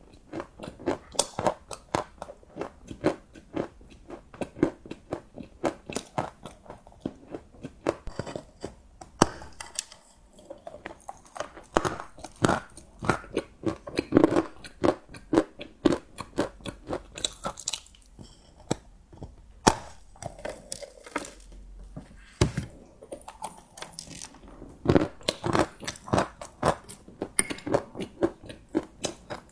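Close-up chewing of crunchy chocolate: bites and dense, irregular crunching, several crackles a second, with brief lulls between mouthfuls.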